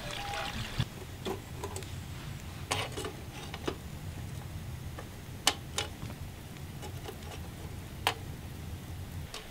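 A few scattered sharp metallic ticks over a steady low rumble, as an iron ladle is heated in the open flame of a kerosene wick stove.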